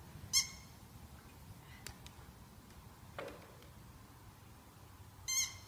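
Rubber squeaky toy squeaking twice, each a short high squeak, about five seconds apart.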